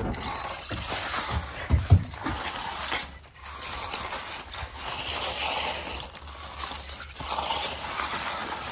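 Dry leaf litter crunching and rustling as the RC car and the person following it on foot push through a patch of leaves, with a couple of low thumps about two seconds in.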